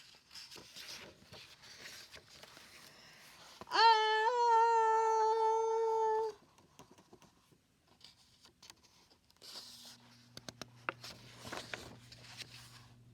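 A woman's voice holds one high, drawn-out vocal note for about two and a half seconds, starting about four seconds in with a quick upward swoop: a reader acting out a storybook character's soft sneeze. Faint rustling comes before it, and a faint low hum with a few light clicks comes near the end.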